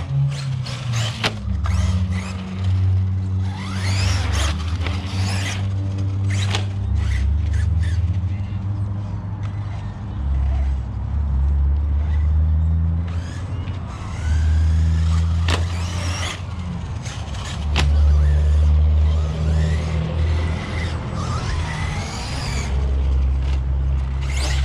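1/8-scale ARRMA Notorious RC basher being driven hard, its brushless motor whining up and down in pitch as the throttle changes. Sharp knocks and clatters from landings and impacts are mixed in, over a steady low hum throughout.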